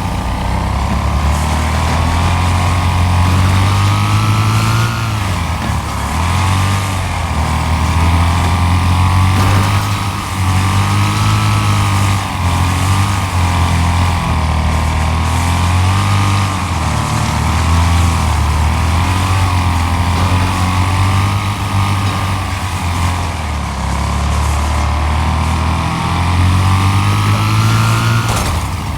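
Riding lawn mower engine running steadily, with a higher whine that wavers up and down in pitch.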